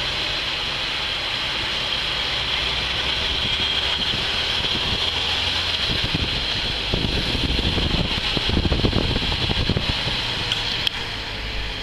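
Steady road and wind noise of a car driving along, with louder, irregular low rumbling for a few seconds in the middle.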